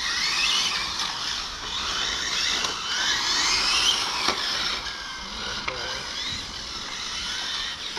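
Electric 1/8-scale GT RC race cars running on the track, their motors whining in rising and falling pitch as they accelerate and brake, several cars overlapping, with tyre noise underneath.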